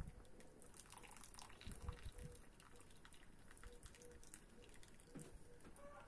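Near silence with faint, scattered drips: broth dripping from a wire skimmer of boiled chicken back into the pot.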